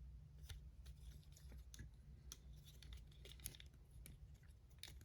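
Faint, scattered clicks of a plastic Transformers action figure being handled and posed, about half a dozen small ticks over a low steady hum.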